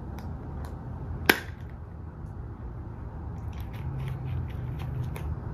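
Small surprise Easter egg being worked open by hand: one sharp click about a second in, then a run of light clicks and rustles as the egg is handled.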